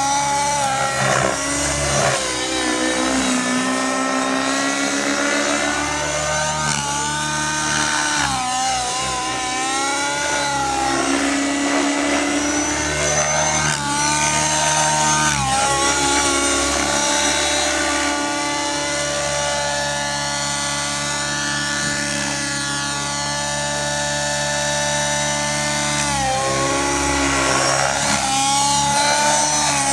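Align T-Rex 700 nitro RC helicopter's two-stroke glow engine and rotor running hard in flight, the engine note rising and falling again and again as the helicopter manoeuvres.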